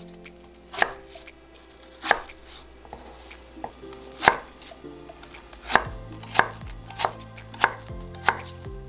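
Chef's knife dicing a peeled apple on a wooden cutting board: sharp knocks of the blade striking the board. A few slow cuts come first, then a quicker, even run of about one and a half cuts a second in the second half.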